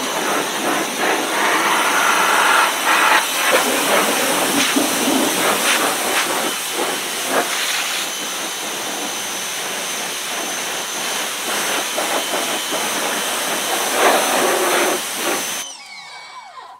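Electric pressure washer spraying water into a muddy wheel well: a loud, steady hiss of spray with a steady high whine on top. The spray cuts off suddenly about a second before the end, and the pump motor winds down with a falling whine.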